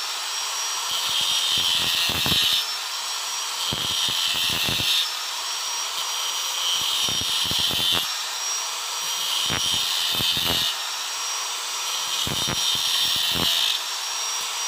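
Electric angle grinder with a small cutting disc running continuously, biting into teak wood in repeated short passes of a second or two each, carving scale grooves into a walking stick.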